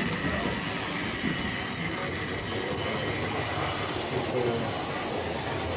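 OO gauge model train running along the layout's track, a steady mix of the small electric motor and wheels on the rails.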